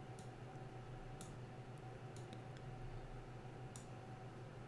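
Faint, scattered clicks of a computer mouse, about seven at uneven intervals, over a low steady electrical hum.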